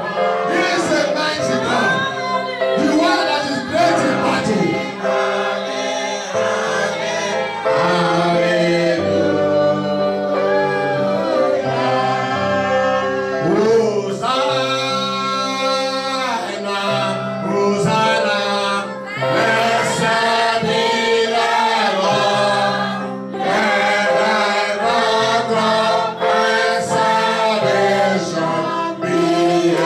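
Congregation singing a gospel worship song together over steady sustained accompanying chords.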